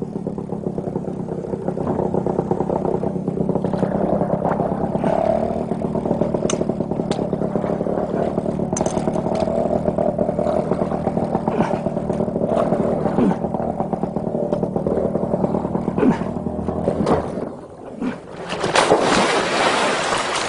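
A motor engine running steadily for most of the stretch, with scattered knocks and scraping, then dropping off and giving way to a louder noisy rush near the end.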